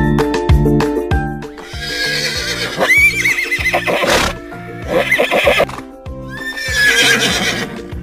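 A horse neighing twice, each whinny long and wavering, over upbeat background music with a steady beat. The music plays alone for the first second or so.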